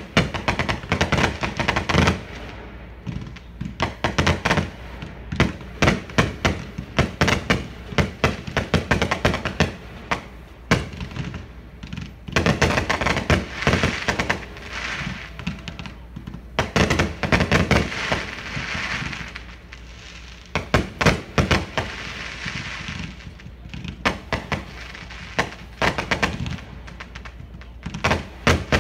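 Fireworks display: aerial shells bursting in quick, irregular runs of sharp bangs, with dense crackling from crackle stars about twelve and eighteen seconds in.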